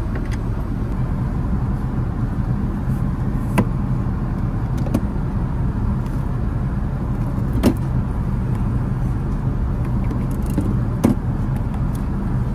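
Steady low rumble of an Airbus A380's cabin in cruise flight. A few light clicks and knocks come through it as a drinking glass is handled on the seat's side console.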